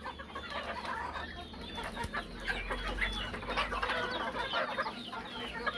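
A flock of young chickens clucking and chirping while feeding, many short calls overlapping, with scattered small clicks.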